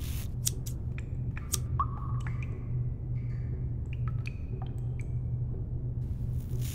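Scattered small wet clicks, squelches and brief squeaks over a steady low hum.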